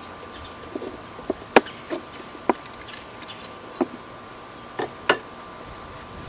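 Irregular knocks and clicks, about eight in all, of wooden beehive boxes being handled and shifted to realign them. The sharpest knock comes about a second and a half in.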